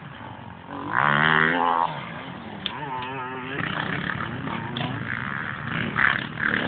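Enduro motorcycle engines revving as bikes pass on the course, the pitch rising and falling with the throttle. The loudest surge comes about a second in, with more throttle bursts near the end.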